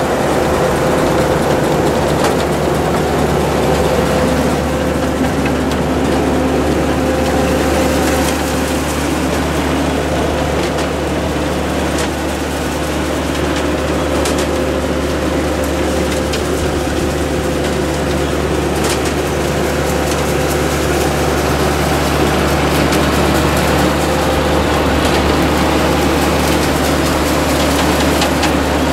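Side-mount blueberry harvester working behind its tractor: steady engine and machinery noise with a constant whine, and a few light ticks scattered through.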